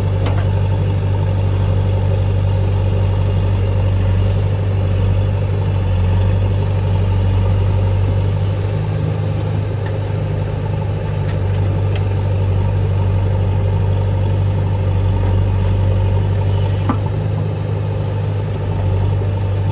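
JCB 3DX backhoe loader's diesel engine running at a steady speed, with a couple of faint clicks.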